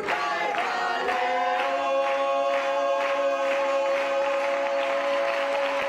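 A group of voices singing together, holding one long chord for about five seconds over a light, steady beat of about two a second.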